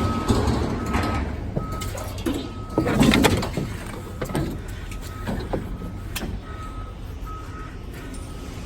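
A vehicle's reversing alarm beeping steadily at one pitch, about one beep every three-quarters of a second, over a low engine rumble at a scrapyard, with a few metal knocks and clanks, the loudest about three seconds in.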